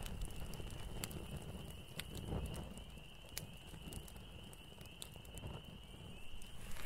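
Small campfire crackling softly, with scattered sharp pops, over a steady high-pitched drone.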